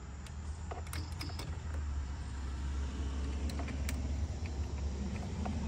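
A small wrench on a tow mirror's 10 mm mounting nut, giving a few faint metallic clicks and creaks over a steady low rumble.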